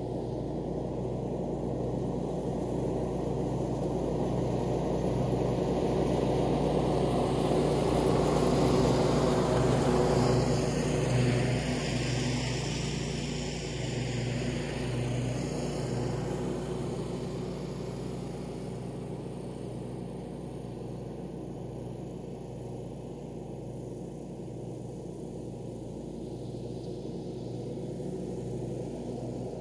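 Ride-on lawn mower engine running steadily while mowing. It grows louder as the mower comes nearer, peaking about a third of the way in, then fades as it moves away.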